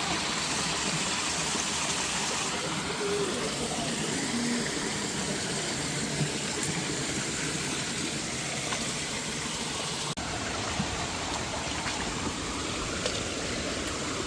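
Flowing water running steadily, an even rushing sound, with a brief break about ten seconds in.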